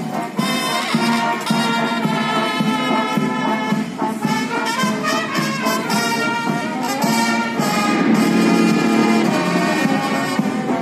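Music led by brass instruments, trumpets and trombones playing sustained melodic lines.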